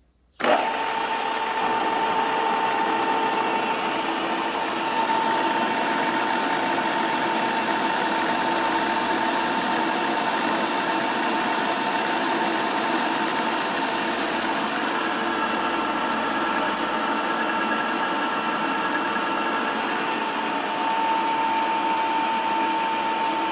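Metal-cutting machine tool boring car connecting rods, running steadily with a constant whine. It starts suddenly, and a high, thin whistle joins about five seconds in.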